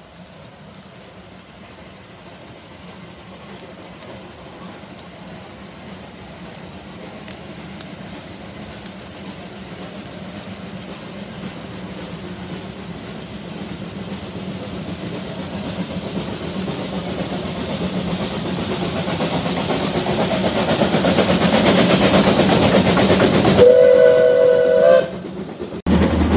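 Narrow-gauge steam locomotive approaching, its running noise growing steadily louder as it nears. Near the end it sounds a short steam whistle, a steady two-note chord held for about a second and a half.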